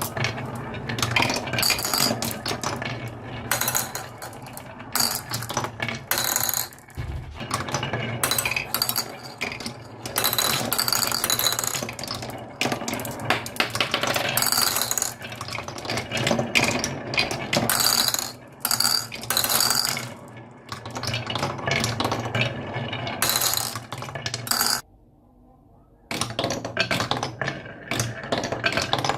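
Many glass marbles rolling and clattering down a wooden marble run, a dense stream of clicks and rattles as they knock against the track and each other, stopping for about a second near the end before starting again.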